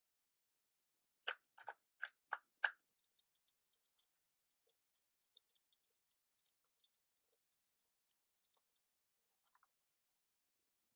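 Plastic 4x4 speed cube being turned by hand: five sharp clicks of layers snapping into place in quick succession, then a run of faint, rapid ticking from lighter turns that dies away near the end.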